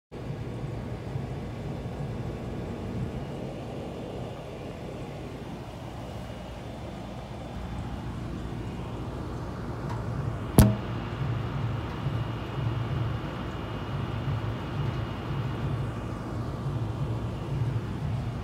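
A steady low motor rumble with one sharp click about ten and a half seconds in.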